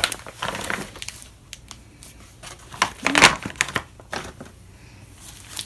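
Heavy plastic of an MRE meal bag crinkling and rustling as the torn-open outer bag is pulled off and the wrapped contents are slid out and set down on a wooden table, with scattered clicks and taps. A short vocal sound about three seconds in; the handling grows quieter near the end.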